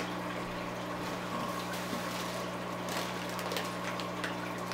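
Steady low electrical hum with a few faint clicks and rustles as plastic fish bags are handled in a cardboard box.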